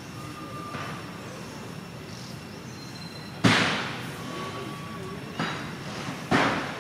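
Three sudden loud bangs, each dying away within about half a second: one about halfway through, two more close together near the end. Faint thin whistles sound over a steady background hiss.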